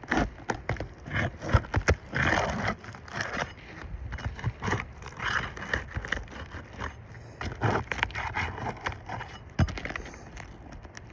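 Asphalt roof shingles being handled and pried up: irregular scraping and crackling with scattered sharp clicks.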